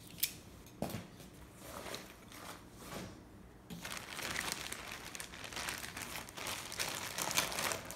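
Child's plastic craft scissors cutting a pipe cleaner: a couple of sharp clicks in the first second, then a dense crinkly rustle of snipping and rubbing from about halfway in.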